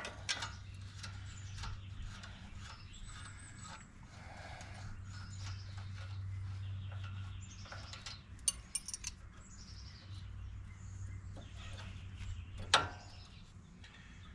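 Hand-tool work on a truck's front brake line bracket: sparse metal clicks and clinks, one sharp click near the end the loudest, over a steady low hum. Faint birdsong is heard behind.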